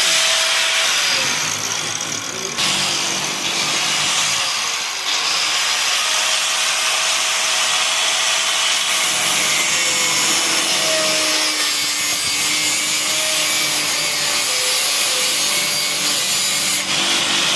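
Handheld angle grinder with a cutting disc cutting through material: a loud, steady hiss of the disc biting in over the whine of the motor, easing off briefly about two and five seconds in.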